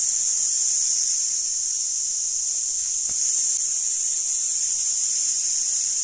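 A steady, high-pitched insect chorus, a continuous shrill drone with no breaks.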